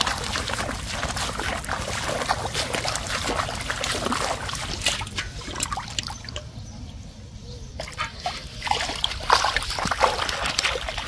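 Shallow paddy-field water splashing and sloshing under wading bare feet, in irregular splashes. It drops to a quieter stretch about six seconds in, then the splashing picks up again.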